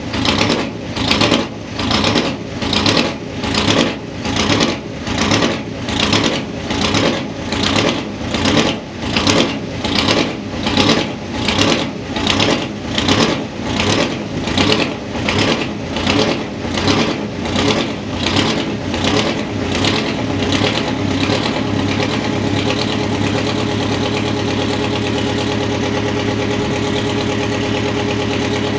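Detroit Diesel 8V71 two-stroke V8 just after a cold start, running below its set idle so the governor holds it near full throttle, surging rhythmically about once a second with odd sounds and heavy smoke. About twenty seconds in the surging dies away and it settles into a steady idle.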